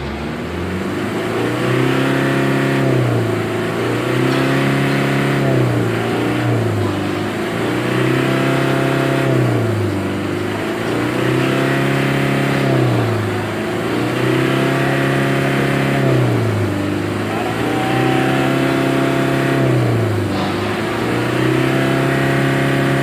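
Mitsubishi L300's diesel engine revved up and let drop back about nine times in a row, roughly every two and a half seconds, each rev held briefly at the top. The repeated revving is a free-acceleration check for black smoke after a fuel-saver device was fitted.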